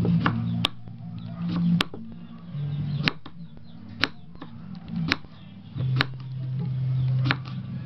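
Kitchen knife slicing a wild bitter gourd into rounds on a wooden chopping block, each cut ending in a sharp knock of the blade on the wood, about one a second.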